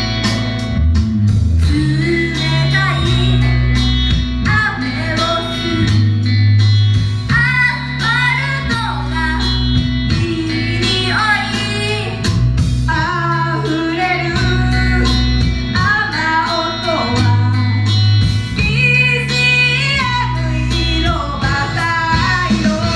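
Idol pop song with female vocals singing over loud electric guitar, bass and drums. The vocals come in about two seconds in.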